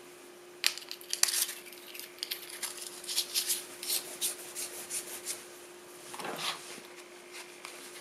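Handling noises of small everyday-carry gear: a small metal flashlight screwed shut after a battery is put in, then fitted into a leather wallet, giving a run of light clicks, taps and rubbing. A faint steady hum sits underneath.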